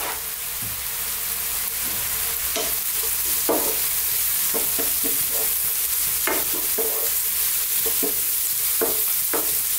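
Chopped onions and garlic sizzling steadily in plenty of olive oil in a frying pan. From a few seconds in, a wooden spoon stirs through them with scattered light knocks and scrapes against the pan.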